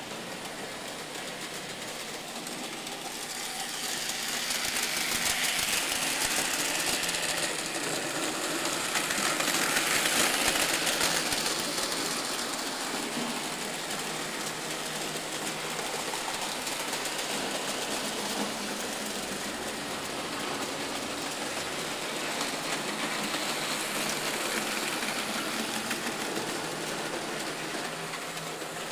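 Märklin model trains running on the layout: a steady whir of small electric motors with fine rapid rattle of wheels on the track, growing louder as a train comes close between about 4 and 12 seconds in.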